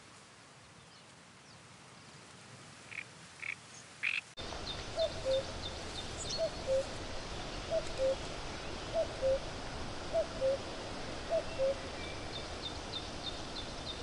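Common cuckoo calling its two-note "cuck-oo", the second note lower, six times at about one call every second and a quarter, with faint high chirps of small birds behind. Before the cuckoo starts, about four seconds in, there are a few short, higher chirps.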